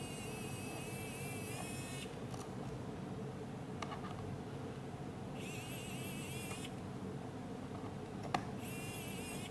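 ArrowMax SES Pro motion-control electric screwdriver driving small screws: its tiny motor whirs in three short high-pitched bursts, the pitch wavering slightly. A few sharp clicks fall between the bursts, the loudest near the end.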